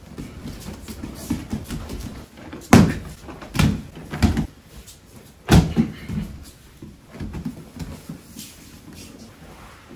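Bodies rolling and landing on foam tatami mats: a series of dull thuds, four loud ones between about three and six seconds in, with lighter thumps and shuffling around them.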